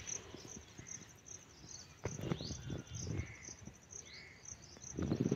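Insects chirping steadily: a high, pulsing trill repeating a few times a second. Over it come bursts of rustling as a hand moves through the rice stalks, loudest near the end.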